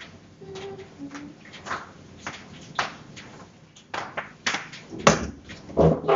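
Household handling noises: scattered light clicks and taps of objects being handled, then two heavier knocks near the end as something is set down on a table.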